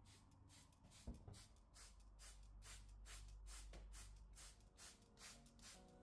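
Trigger spray bottle misting potted plants: quick, faint hissing sprays about four a second, with a light knock about a second in.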